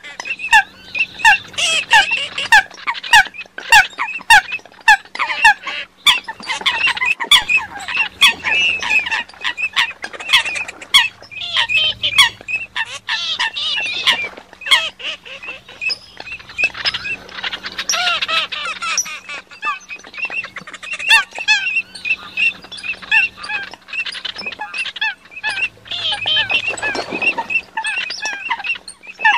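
Many sâm vịt, a duck-like waterbird, calling together: a dense chorus of short, downward-slurred calls with many sharp clicks among them, over a steady low hum.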